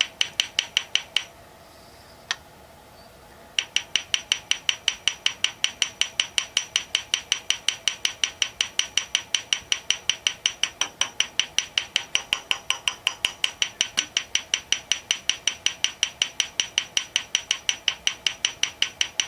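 Sharp metallic taps on a part of a VAZ 2109 engine, imitating an engine knock. They come steadily at about five a second, each ringing on a high note, with a pause of about two seconds near the start holding a single tap. No engine is running underneath.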